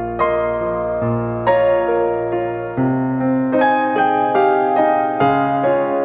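Background piano music: slow, gentle single notes that come a little faster in the second half.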